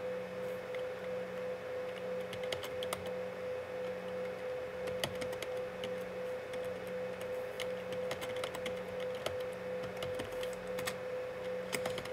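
Irregular clicking of laptop keyboard keys as a line of code is typed, over a steady hum with a faint low tone pulsing about once a second.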